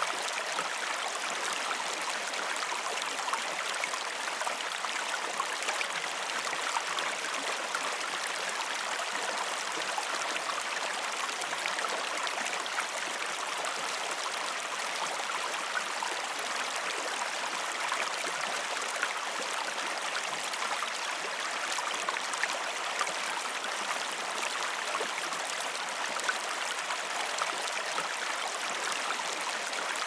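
Water from a small cascade splashing over rocks into a stream pool: a steady, even rush without any deep rumble.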